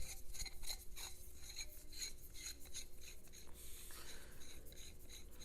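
Metal brace tubes and their connector pieces handled and fitted together by hand, with irregular light clicks and scraping as the parts are threaded loosely together.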